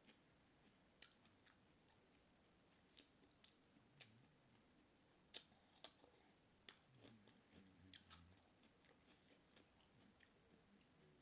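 Faint close-up eating sounds: chewing with scattered wet mouth clicks and lip smacks, the sharpest a pair about five and a half seconds in.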